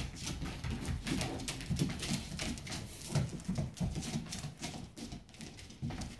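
A cat's paws and claws scrabbling and thumping on a wooden floor as it pounces and spins, a quick, irregular run of taps and soft thuds.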